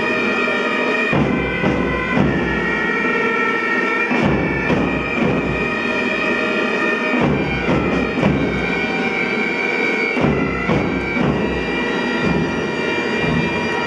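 A pipe band playing: bagpipes sound a tune over their steady drones, with drums beating along.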